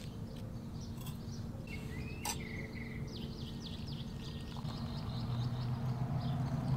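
Birds chirping over a steady low background hum. A sharp click comes a little over two seconds in.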